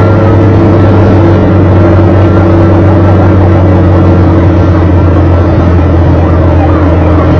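Steady loud low engine drone from riding along in traffic. Underneath it, fire engine sirens yelp quickly up and down, clearest near the end.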